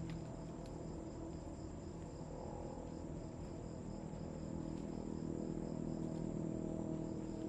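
Forest insects chirring steadily in a high pitch, one of them in a fast pulsing rhythm, over a low steady hum.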